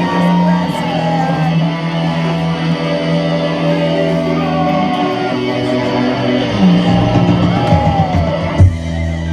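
Live rock band playing: sustained electric guitar chords ring out and shift to a lower chord about two-thirds of the way through. Near the end, heavy low drum hits come in on a beat.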